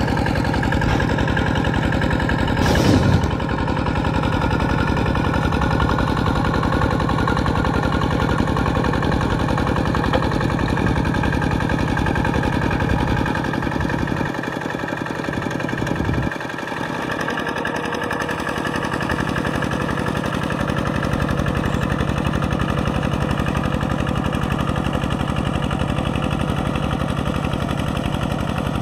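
Kubota RT120 single-cylinder diesel on a two-wheel walking tractor running steadily under load as it works a flooded rice paddy. There is a sharp knock about three seconds in, and the engine sound drops briefly a little past the middle.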